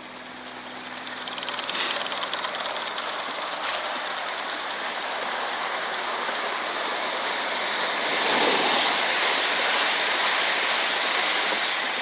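Gauge 1 live-steam model locomotive passing close with its train: a steady hiss of exhaust steam and running noise that swells about a second in and is loudest about two-thirds of the way through.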